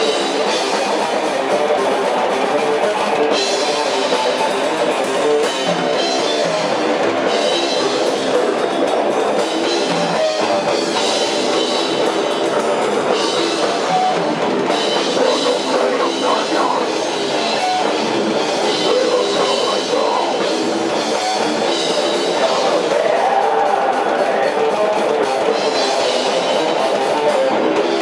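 Rock music with drums and electric guitar, loud and steady throughout.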